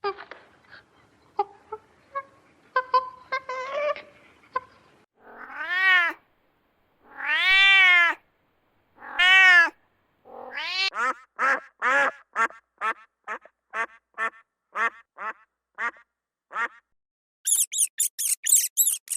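A run of animal calls: scattered short calls at first, then three long drawn-out cries that rise and fall in pitch, then a quick series of short calls about two a second, and very high squeaks near the end.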